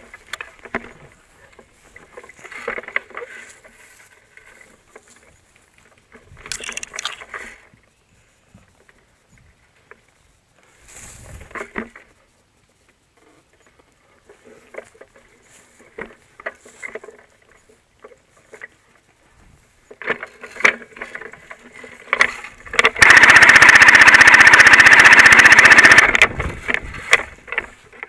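Airsoft MG42 replica firing one long, very rapid burst of about three seconds, near the end. Before it come scattered short knocks and rustles.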